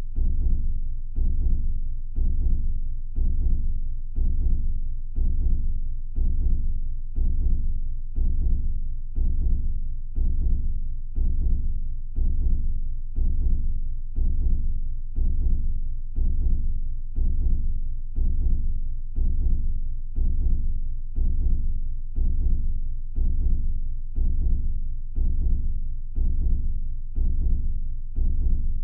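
Background music: a deep, steady drum beat, about one hit a second, each hit dying away before the next.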